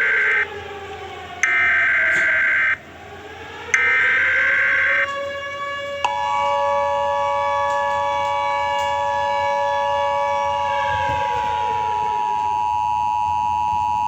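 Emergency Alert System tones: three short, harsh digital data bursts over a wailing siren tone that glides down and back up. About six seconds in, the steady two-tone EAS attention signal starts, and the siren tone slides down and fades beneath it.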